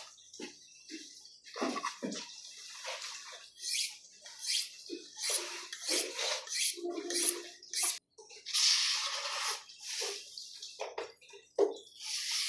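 Deboning knife being sharpened: a string of short scraping strokes of the blade, at an uneven pace of about one or two a second.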